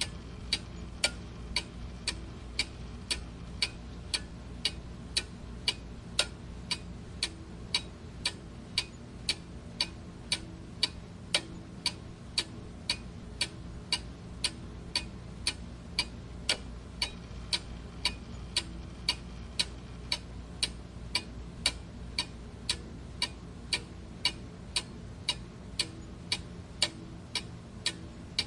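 Clock ticking steadily, about two ticks a second, each tick a sharp click, over a faint low hum.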